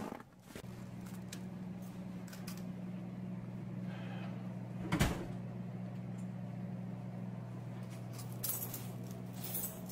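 Steady low electrical hum of shop lights that come on about half a second in. A single sharp knock comes about five seconds in, with a few light clicks near the end.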